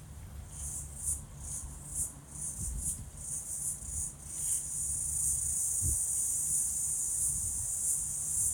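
Crickets chirping high-pitched, in separate chirps at first, then merging into a continuous trill from about halfway. A low steady hum runs underneath, with a brief low thump around six seconds in.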